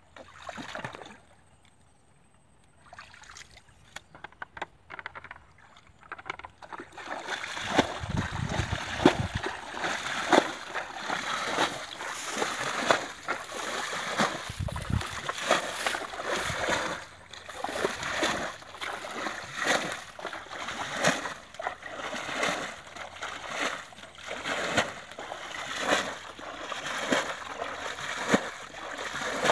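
Water being bailed from a shallow muddy pond with a plastic basin: after a quiet start with a few soft knocks, repeated scoops and splashes begin about seven seconds in and keep going at roughly one a second.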